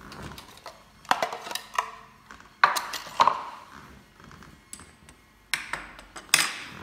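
Hard plastic and metal parts of a manual meat grinder knocking and clattering against each other and a wooden board as the grinder is taken apart: a run of sharp knocks with a short ring, the loudest about two and a half seconds in.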